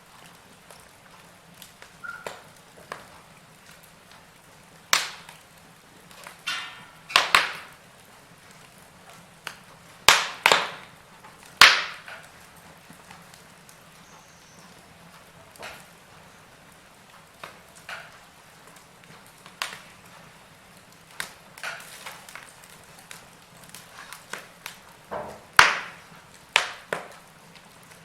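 Wood fire crackling: burning logs giving irregular sharp pops and snaps over a low steady hiss, with a cluster of loud pops around ten to twelve seconds in and another near the end.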